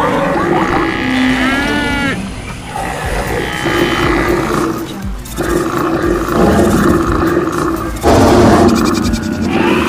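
A dense stampede mix of wild-animal roars and calls layered over music. A run of rising-and-falling calls comes about two seconds in, and the mix swells louder about eight seconds in.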